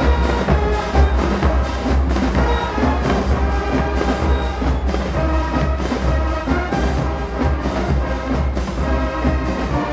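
Marching band playing: brass horns carry the tune over a steady beat of drums.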